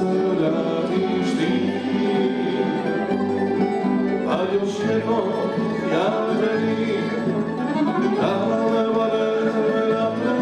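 Tamburica band playing: plucked tamburas with accordion and double bass, and men singing.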